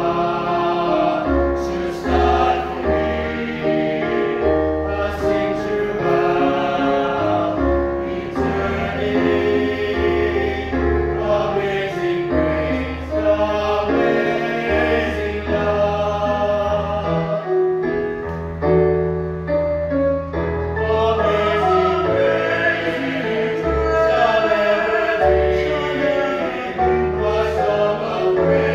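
A group of five men singing a worship song in close harmony, several voice parts moving together in chords over a low, held bass line.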